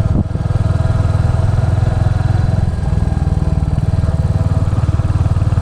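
Motorcycle engine running steadily with an even, rapid low pulse, loud throughout.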